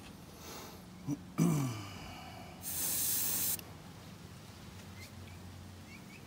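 Airbrush spraying paint in short hisses, the longest lasting about a second just before the middle. About a second and a half in there is a short low sound that drops in pitch, and faint high chirps come near the end.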